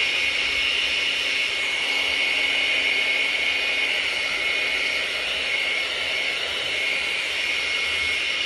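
Handheld hair dryer running steadily, a loud whir with a high, even whine, used to blow and spread acrylic pour paint.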